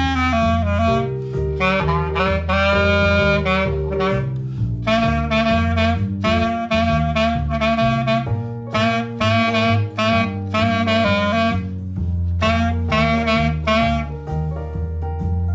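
Jazzy play-along music: a reed woodwind plays the melody in short, punchy phrases over a bass line.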